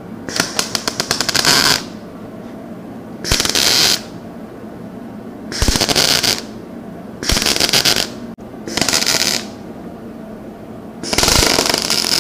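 MIG welding arc laying tack welds on a thin sheet-steel panel: six short crackling bursts, each under two seconds, with pauses between. The welds are kept short to hold the panel in place without enough heat to warp it.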